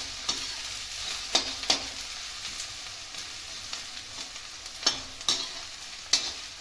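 Sliced onions sizzling in hot oil in a kadhai, stirred with a metal slotted spatula that scrapes and knocks against the pan. The sharper clacks come about a second and a half in and again around five seconds. The onions are being sautéed until they turn light brown.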